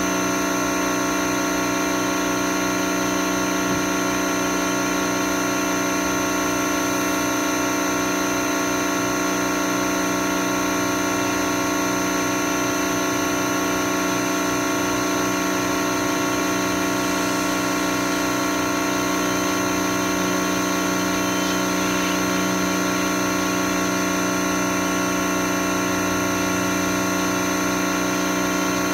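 Pressure washer running steadily, a constant machine hum with the hiss of its spray on a car wheel.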